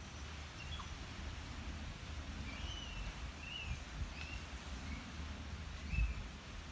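Scattered short, high chirping calls over a steady low rumble, with one dull low thump about six seconds in.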